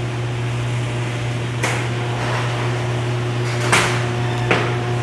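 Two sectional garage doors rising on LiftMaster electric openers: a steady motor hum, with three sharp clacks from the panels and rollers in the tracks.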